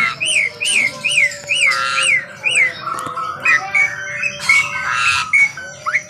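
White-rumped shama singing: a string of quick arched whistles, rising then falling, about three a second for the first couple of seconds, then a varied run of whistles broken by harsh buzzy notes.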